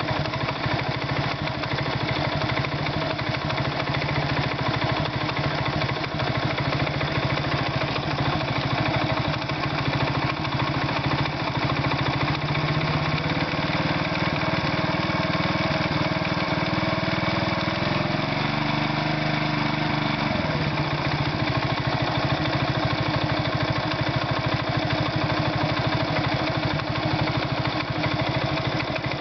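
Irbis Virago 110 moped's single-cylinder four-stroke engine idling with a knock in the engine, the fault the owner is showing. Engine speed rises a little about halfway through and falls back to idle after several seconds.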